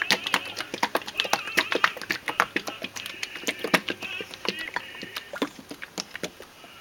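Plastic paint containers being shaken and handled: a run of sharp, irregular knocks and clatters, several a second, with a faint high wavering tone behind them.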